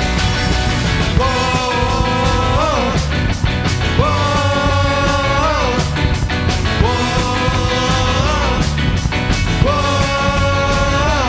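Live punk-ska power trio of electric guitar, bass and drums playing a loud instrumental passage. Over the band, four long held notes each slide in pitch at the end.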